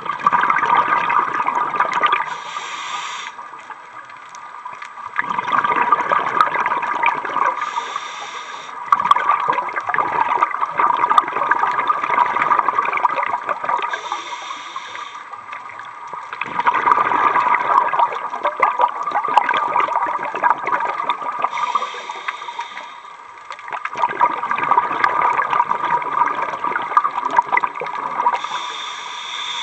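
Scuba diver breathing through a regulator underwater: a long rush of exhaled bubbles about every six seconds, with a short hiss of inhalation between each.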